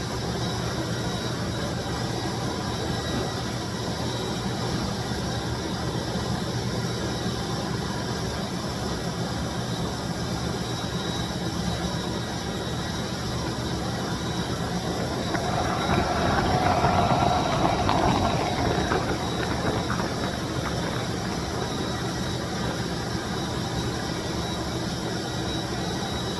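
1995 Bissell deep cleaning machine running steadily, its motor giving an even whirring rush with a faint high whine. About 15 seconds in it grows louder and brighter for a few seconds, then settles back to the steady run.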